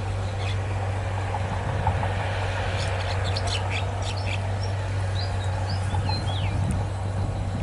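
Small birds chirping, with a quick run of short calls in the middle, over the steady low hum of an idling engine.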